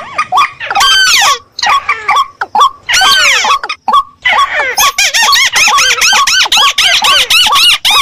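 Lure recording of rice-field waterbirds (rails, crakes and waterhens) calling, used to draw in game birds. Many quick, squeaky, arched notes overlap in a near-continuous chorus, with a couple of short breaks in the first half.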